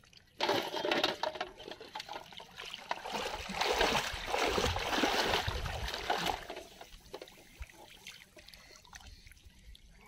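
Shallow water splashing and sloshing as a person wades and works his hands through it. It starts suddenly about half a second in, is loudest in the middle, and dies down after about seven seconds.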